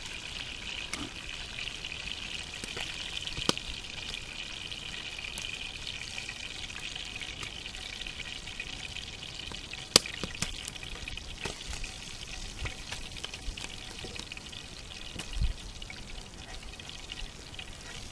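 Fish frying in oil in a pan: a steady sizzle with a few sharp pops, the loudest about ten seconds in.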